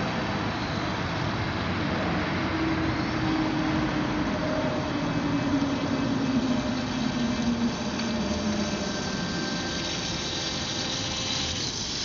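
Rimfire 2400 kV brushless electric motor and propeller of a homemade RC snowmobile running, a steady hum over a noisy rush, its pitch sliding slowly down from about two seconds in to about eight seconds in.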